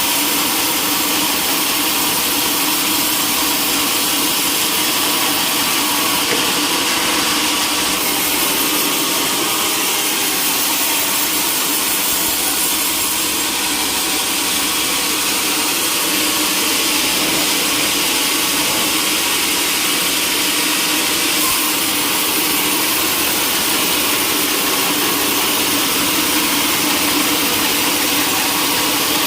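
Sawmill machinery running steadily: a loud, even mechanical din of engine and saw with a constant hum underneath.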